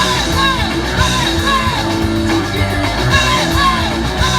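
Punk rock band playing, with short shouted and sung vocal phrases repeating about every half second over held bass and guitar notes.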